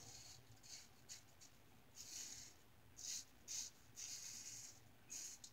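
GE Jones Shake Sharp MK2 safety razor with double-stacked Wizamet blades scraping through stubble on a lathered face: a series of short, faint strokes, about seven, spread over the few seconds.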